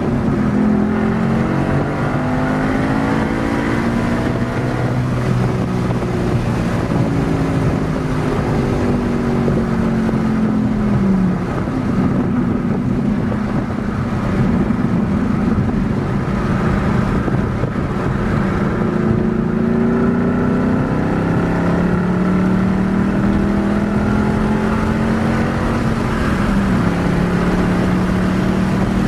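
2013 Ford Mustang Boss 302's 5.0-litre V8 running through its stock exhaust while driving. The engine note rises and sags slowly, with sudden drops in pitch about eleven seconds in and again near the end, as at gear changes.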